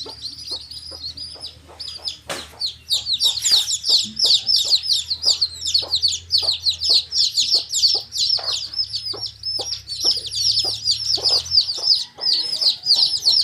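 A group of baby chicks peeping: many quick high-pitched chirps overlapping almost without a break, getting busier after the first couple of seconds. A steady low hum runs underneath, and there is one sharp click about two seconds in.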